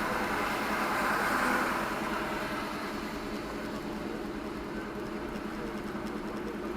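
Car engine and road noise heard from inside the cabin, a steady hiss with a low hum. It drops a little about two seconds in and fades out at the very end.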